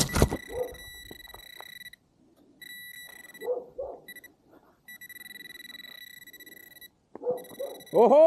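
Metal detector giving a high, steady beep that cuts in and out several times, then holds for about two seconds: the detector is sounding on a metal target in the dig.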